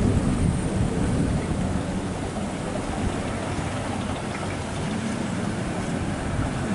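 Maxxi Bimo 102L rice combine harvester running steadily as it cuts and threshes standing rice: a dense, even engine-and-machinery noise with no breaks.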